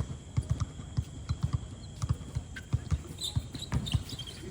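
Basketball play on a court: the ball bouncing in irregular dribbles and players' footsteps thudding, with a few short high squeaks about three seconds in.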